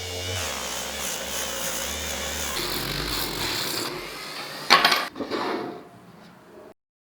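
Workshop tool noise: a small motor or power tool running steadily, with a sharp, loud knock a little under five seconds in, then fading and cutting off abruptly.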